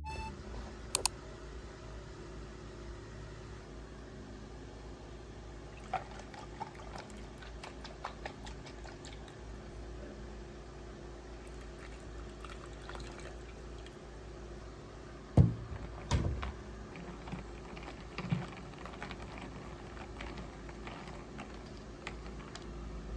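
Liquid being poured over a steady low hum, with scattered light clicks and a few louder knocks past the middle.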